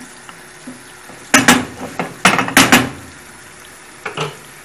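Wooden spoon knocking and clattering against a non-stick frying pan: a quick run of sharp knocks a little over a second in, then a lighter pair near the end, over the faint steady sizzle of onions and eggs frying.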